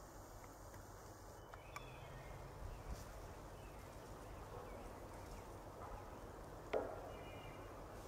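Quiet woodland ambience with a few faint bird chirps and one sharp click or snap about seven seconds in.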